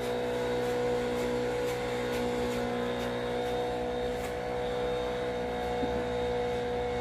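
Grass-cutting engine running steadily, a constant drone.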